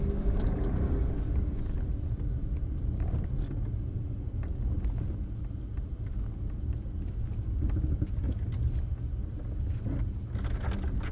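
Cabin sound of a Lorinser-tuned Mercedes S600 with a V12 engine driving on a snow-covered road: a steady low rumble of engine and tyres on snow.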